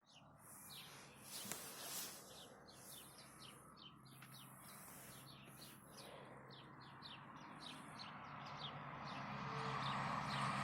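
Small birds chirping: many short, high chirps that drop quickly in pitch, several a second. A steady low hiss and hum grow louder toward the end.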